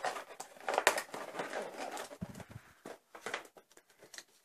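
Toy packaging being handled, crinkling and rustling with small clicks and taps. It is busiest in the first two seconds and thins to a few scattered taps near the end.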